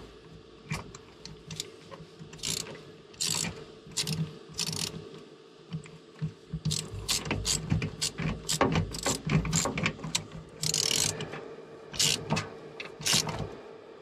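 Hand tools working on a boat's battery cable connections: irregular sharp metal clicks and rattles, with short runs of ratchet-like clicking and a longer rattle about eleven seconds in.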